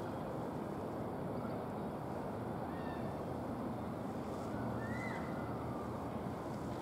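Distant rumble of a Class 66 diesel-electric locomotive's two-stroke V12 engine hauling a freight train at a crawl, steady throughout. A brief high call that rises and falls is heard near five seconds in, with a fainter one a couple of seconds earlier.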